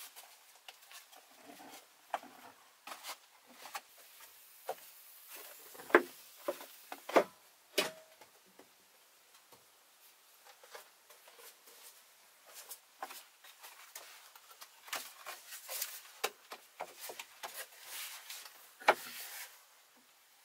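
Scattered wooden knocks, taps and rustling of a person moving about and handling things, with a few sharper knocks about six to eight seconds in and once more near the end.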